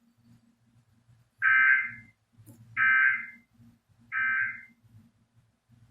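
Emergency Alert System SAME data tones sent as three short, identical buzzing bursts about a second apart: the end-of-message code that closes the severe thunderstorm warning. A faint low hum runs underneath.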